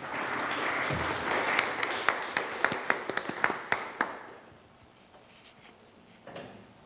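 Audience applauding, with many hand claps, dying away about four seconds in.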